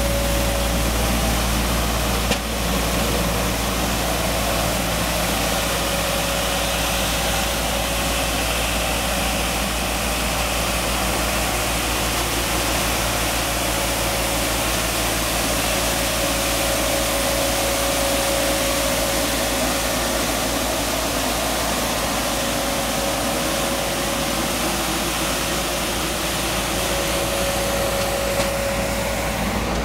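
Bucher Schörling truck-mounted street sweeper working: its engine and suction fan make a steady, unbroken running noise with a constant whine over a low hum, while the rotating side brush sweeps over block paving. A single small click sounds about two seconds in.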